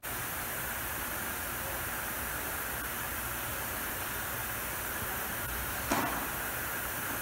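Steady hiss of room tone in a large workshop, with one short knock about six seconds in.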